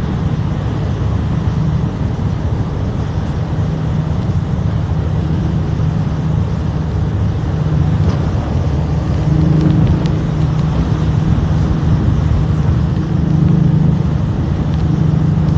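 Engine of a tour boat under way, a steady low drone with a rushing haze of wind and water over it.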